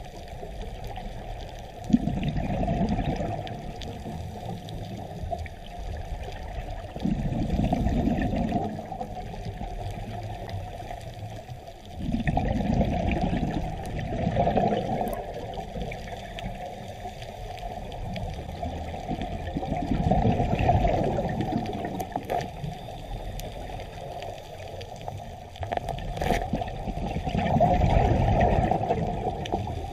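Underwater sound through a camera housing: a steady watery hiss with rumbling surges of a scuba diver's exhaled bubbles every few seconds, and a sharp click about two seconds in.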